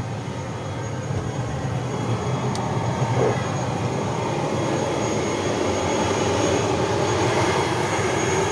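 ATR 72-600 turboprop airliner's engine running steadily on the apron, with a faint high whine, slowly growing louder.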